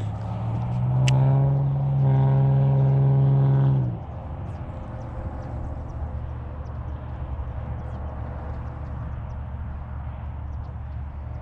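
A motor engine revs up from a steady low idle, holds the higher speed for about three seconds, then drops back abruptly to idle about four seconds in and keeps running low and steady. Faint scattered ticks sound over the idle.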